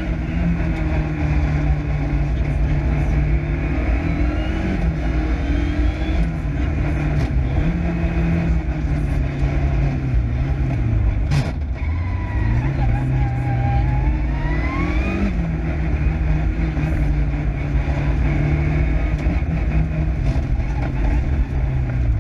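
Lancia Delta Integrale Group A rally car's turbocharged 2.0-litre four-cylinder engine at full stage pace, its pitch rising and falling through repeated gear changes, lifts and re-accelerations. There is one sharp crack about eleven seconds in, at the deepest drop in revs.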